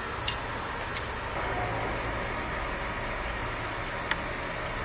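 Steady background noise with a low hum, broken by a few faint, short clicks.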